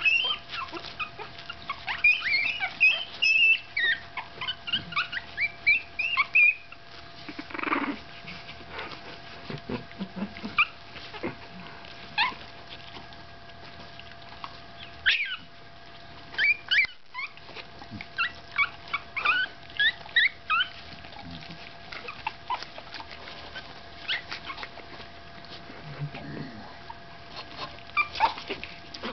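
Litter of 15-day-old Staffordshire Bull Terrier puppies squeaking and whimpering in short, high-pitched cries, coming in clusters: many in the first seven seconds, again in the middle, and a few near the end.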